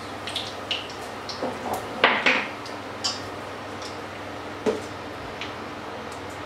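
Metal cutlery clinking and knocking against a frying pan and a stainless-steel mixing bowl, a handful of separate clinks with the loudest clatter about two seconds in.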